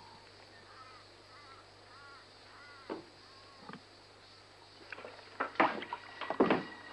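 Crows cawing several times in the background. From about five seconds in comes a quick run of sharp knocks, boot steps on wooden floorboards, louder than the calls.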